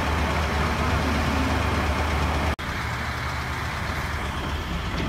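Engine of the heavy lifting equipment idling steadily, a low hum. It cuts out for an instant about two and a half seconds in and carries on a little quieter.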